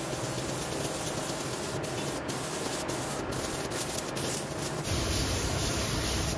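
Gravity-feed air spray gun hissing steadily as it sprays a clear finish onto wood. A low rumble joins the hiss near the end.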